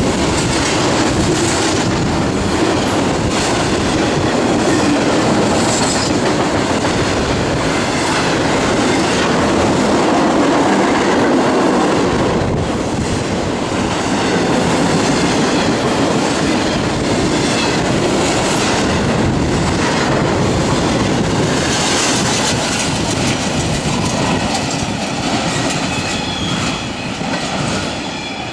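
Intermodal freight train's container and trailer cars rolling past, with steady wheel and rail noise and clickety-clack over rail joints. The sound fades near the end as the last cars pass and the train moves away.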